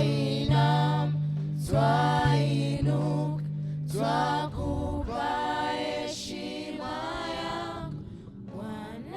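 Voices singing a slow Swahili worship song in long held, bending notes. A steady low bass note sounds under them and stops about halfway through.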